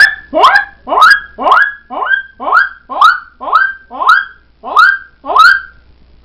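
A boy's voice making a high-pitched siren imitation: eleven quick rising whoops, about two a second.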